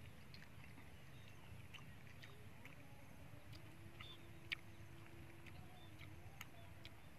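Faint clicks and crackles of eggshell being picked off boiled duck eggs by hand, with one sharper crack about four and a half seconds in, over a low steady background rumble.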